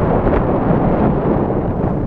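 Strong wind buffeting the microphone in flight: a loud, steady, low rumbling rush of air.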